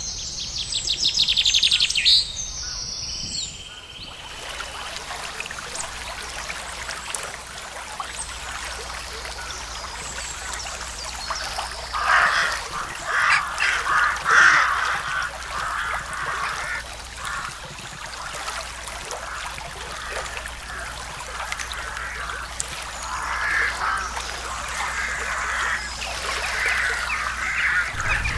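Birds calling and singing beside a trickling creek: a quick repeated trill in the first two seconds, then a run of louder calls about halfway through and again near the end.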